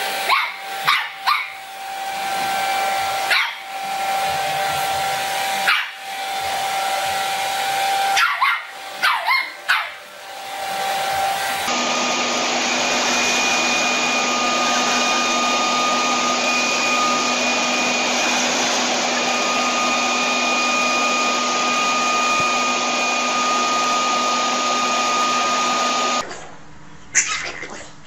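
A hand-held hair dryer running with a steady whine while a small dog barks at it in short sharp bursts. About twelve seconds in it gives way to a steadier, louder leaf blower running continuously.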